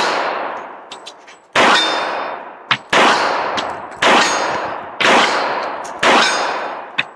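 Smith & Wesson Performance Center 1911 pistol in .45 ACP firing five shots at a steady pace of about one a second, each with a long echoing tail. Light clicks sound between some of the shots.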